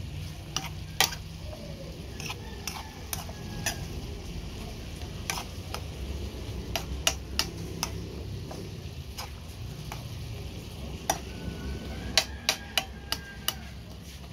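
Metal spoon stirring sliced coconut heart in a nonstick frying pan, with sharp irregular clicks of the spoon against the pan over a steady sizzle. A quick run of clicks comes near the end.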